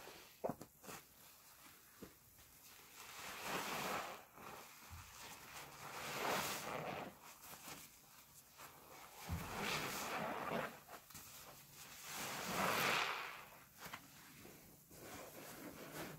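Soapy sponges squeezed by gloved hands: wet squelching and fizzing of foam, in four slow swells a few seconds apart.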